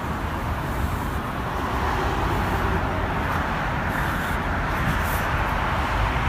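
Steady city street noise picked up by a phone's microphone: a low traffic rumble mixed with wind on the microphone.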